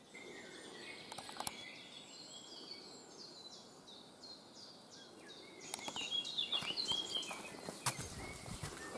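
Small birds singing in woodland: repeated high chirps, then a louder burst of song partway through. A few footsteps sound along the way, and near the end a step knocks on the wooden planks of a footbridge.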